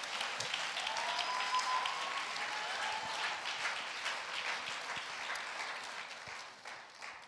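Congregation applauding, a dense clatter of many hands clapping that dies away near the end.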